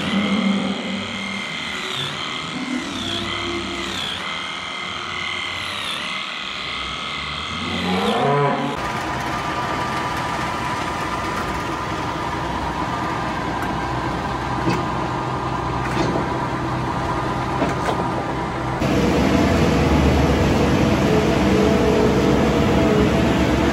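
Electric animal clippers whining on a cow's tail, the pitch dipping about once a second as they bite into the hair. About eight seconds in, a self-propelled Strautmann Verti-Mix feed mixer's engine takes over. It grows louder and deeper near the end as the mixer's cutter loads from a pile of feed.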